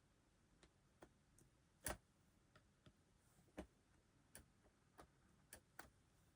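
Faint, irregular light clicks and taps from small items being handled at a work surface, about ten of them, the loudest a little before two seconds in.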